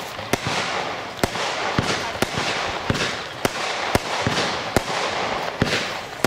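Consumer firework battery (Panda 'Rauchende Colts' cake) firing shot after shot, a sharp report about every half second over a steady rushing hiss.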